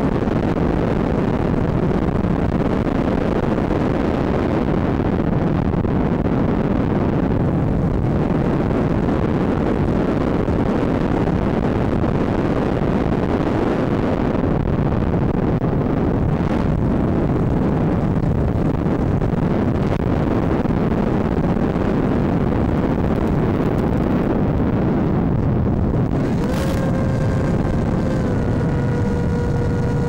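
Steady rush of airflow over the onboard microphone of an Easystar RC plane in flight. About three-quarters of the way in, after a sharp click, the electric motor and propeller come in as a whine with several overtones that slowly drops a little in pitch.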